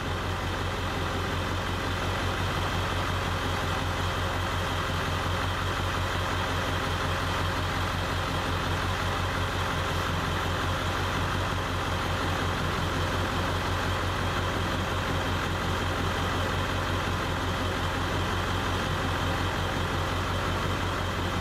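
Ford F-250's 7.3 L Powerstroke turbo-diesel V8 idling steadily during a cylinder contribution test. The truck has a miss, which the test pins on cylinder 1 (code P0263); the mechanic suspects a weak injector there.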